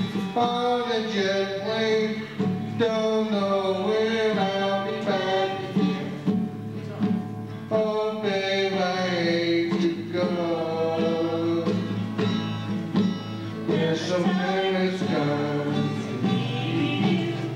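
A man singing lead into a microphone, accompanied by strummed acoustic guitar, with women's voices singing along.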